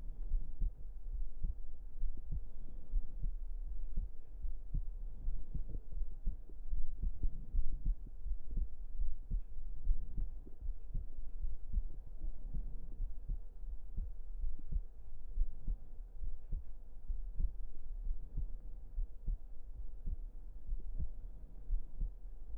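Human heartbeat heard close up through a microphone: repeated low, muffled thumps over a constant deep rumble.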